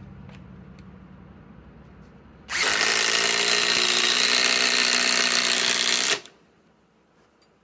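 SKIL PowerCore 20 compact impact driver driving a 4-inch TimberLOK structural screw into wood. It starts about two and a half seconds in, runs steadily for about three and a half seconds and stops abruptly as the screw seats.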